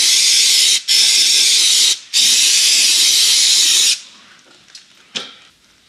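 Aerosol cleaner spray hissing in three bursts onto an oily gearbox casing, the last burst the longest, stopping about four seconds in. A faint tap follows near the end.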